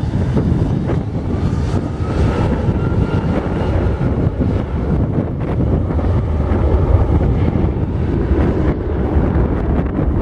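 Boeing 757-200 jet engines at takeoff power: a deep, steady rumble with a faint engine whine, mixed with wind buffeting the microphone.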